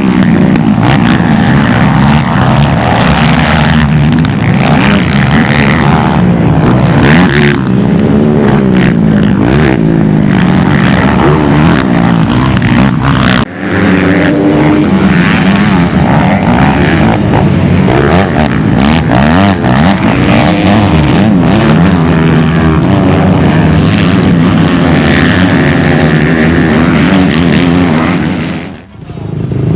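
Racing ATV engines revving, their pitch rising and falling with the throttle. The sound drops out briefly about 13 seconds in and dips again near the end.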